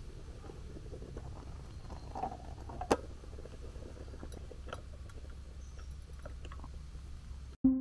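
A steady low rumble, with one sharp knock about three seconds in and a few lighter clicks as a small portable gas camping stove is handled.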